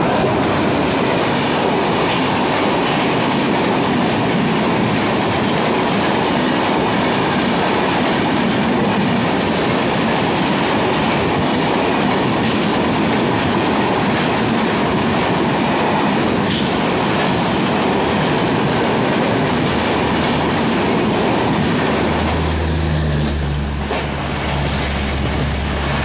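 Express train with LHB coaches running through a station at speed behind an electric locomotive: a loud, steady rush of wheels on rail with a few sharp clicks over the rail joints. Near the end the rush drops away and a low steady hum takes over.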